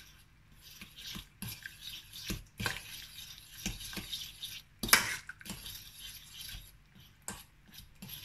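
Metal spoon stirring thick white sauce (butter, flour and milk) in a stainless steel saucepan, with irregular scrapes and clinks of the spoon against the pan. One sharper clink about five seconds in.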